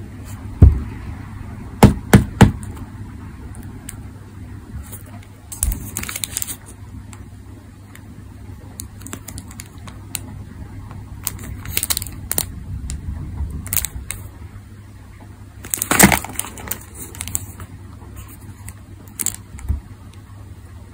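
Small cardboard toy-car box being handled: a thump and three quick sharp knocks near the start, then short scrapes and crackles as fingers grip and turn the box, over a low steady hum.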